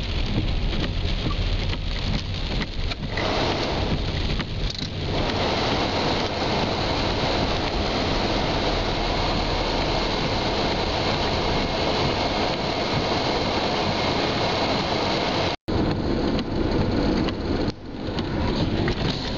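Car driving through a flooded, muddy street in heavy rain, heard from inside the cabin: a steady rushing noise of tyres in water and rain on the windscreen. The sound cuts out for an instant about three-quarters of the way through.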